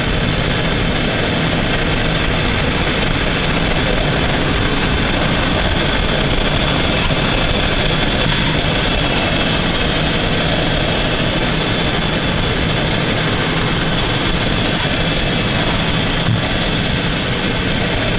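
Steady shaa-shaa, rustling hiss from a Mitsubishi Chariot's brake at the wheel, over low road and drivetrain rumble, heard from a microphone inside the fender with the 2–4 kHz band boosted; the owner takes it for a dragging brake. A single click sounds near the end.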